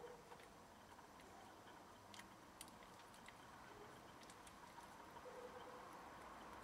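Near silence: faint quiet ambience with a few soft, scattered clicks.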